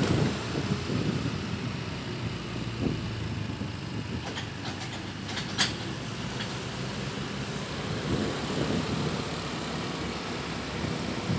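Steady rumble of a vehicle travelling along a road, with one sharp click about five and a half seconds in.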